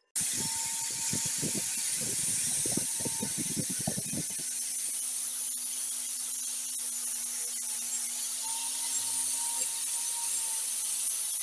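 Angle grinder with a sanding disc running against the steel bicycle-sprocket axe head, throwing sparks: a steady high hiss over the motor's whine. During the first four seconds, uneven low knocks come along with it.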